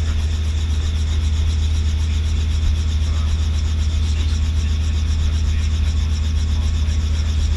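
Robinson R44 helicopter's engine and rotor noise, heard from inside the open, doors-off cockpit in flight: a loud, steady low drone with a fast, even flutter over it.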